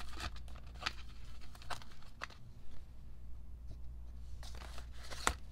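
Photo cards and postcards being handled and shuffled: a few short paper rustles and light taps, the loudest near the end, over a steady low hum.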